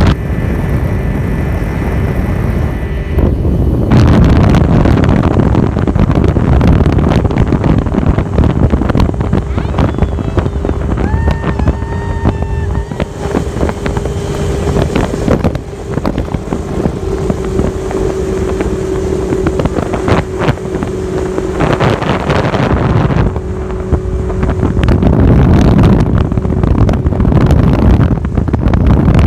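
A small motorboat's engine running steadily while the boat is under way, with a steady hum. Wind rushes over the microphone and gets much louder about four seconds in.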